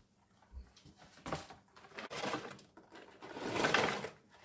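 Frozen spinach shaken out of a cardboard carton into a Thermomix's stainless-steel bowl: several irregular rattles and dull thuds as lumps land in the bowl, the longest and loudest near the end.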